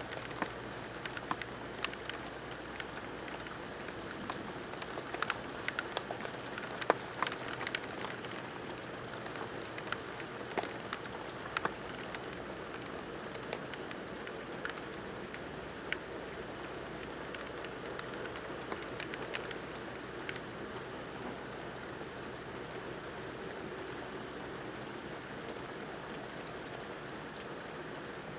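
Steady rain falling, with many sharp individual drop ticks. The ticks come thickest in the first half.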